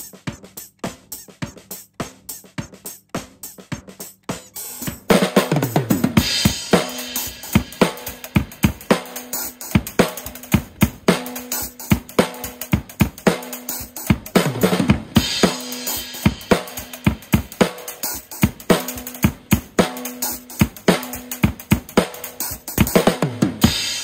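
Drum kit played in a steady groove, with a cymbal stack made from a chainsaw chain laid on a cymbal. A quieter run of even strikes comes first, then about five seconds in the full kit comes in much louder with bass drum and snare, with heavy low drum hits about six, fifteen and twenty-three seconds in.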